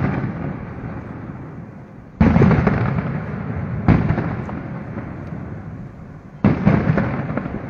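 Aerial fireworks shells bursting: three loud booms, roughly two seconds apart, each trailing off over a second or two with crackling.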